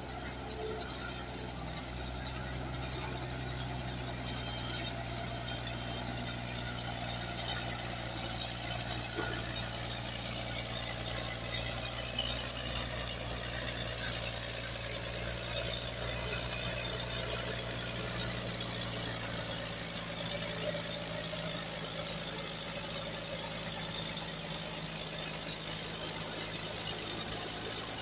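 Caterpillar D6D bulldozer's diesel engine running steadily as the dozer pushes wet clay.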